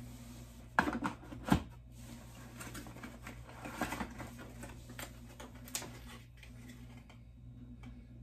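Hands handling a small plastic device and its packaging: two sharp clicks about a second in, then scattered rustling and a few lighter clicks and taps.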